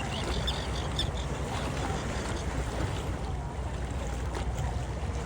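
Steady low rumble of wind and surf on a beach, with a run of short high bird calls in the first second.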